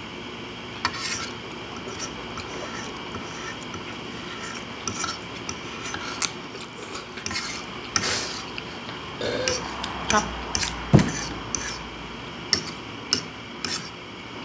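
A metal fork scraping and clicking against a ceramic plate as spaghetti is twirled, with eating noises in between. There are scattered short knocks, the sharpest about eleven seconds in.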